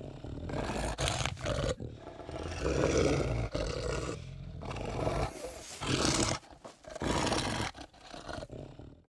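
Movie werewolf sound effects: a run of fierce roars and snarling growls in several bursts with short breaks between them, cutting off abruptly at the end.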